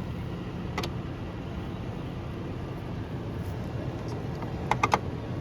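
Steady low rumble of an idling vehicle, with a single sharp click about a second in and three quick sharp clicks near the end.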